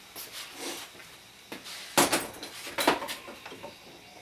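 Hand work on a wooden clock case: two sharp knocks about a second apart, with lighter clicks and rattles of tools and wood being handled.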